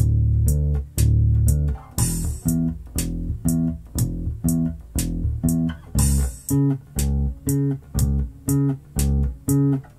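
Electric bass in drop D playing a steady eighth-note line of root notes and their octaves, about two notes a second, over a slow four-beat drum loop with a cymbal wash at the start of each bar.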